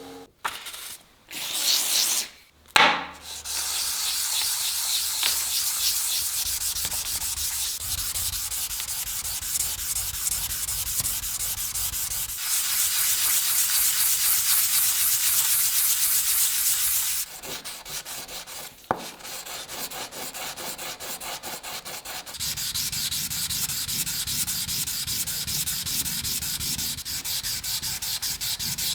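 Abrasive rubbed rapidly back and forth over a steel knife blade in quick, even strokes. A few sharp knocks come in the first seconds, and the strokes grow louder for a stretch in the middle, then softer.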